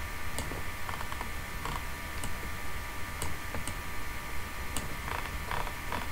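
Irregular sharp clicks of a computer mouse, spaced about half a second to a second apart, over a steady low hum and a faint steady whine.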